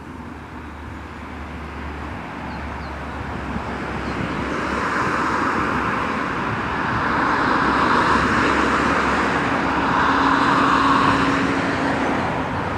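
Road traffic noise: a steady rush of passing vehicles that grows gradually louder, loudest in the second half.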